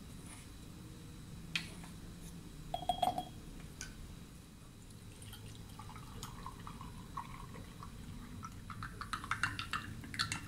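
Water poured into a glass jar onto powder, with a single ringing clink of glass about three seconds in. Near the end a spoon starts stirring, clicking quickly against the inside of the jar.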